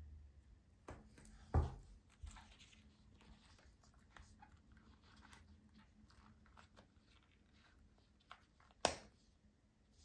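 Close handling of a steel wristwatch and its strap: soft rubbing and small ticks, with two sharp metallic clicks, about one and a half seconds in and near the end, from the folding clasp being worked and snapped shut around a watch cushion.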